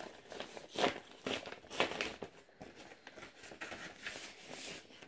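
Brown kraft-paper envelope being opened and handled, its paper rustling and crinkling in irregular crisp bursts.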